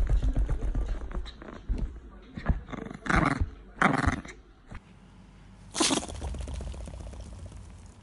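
Pomeranian dog sneezing over and over in sharp, forceful bursts, its 'turbo sneeze': a rapid run of sneezes at the start, then single sneezes about three, four and six seconds in.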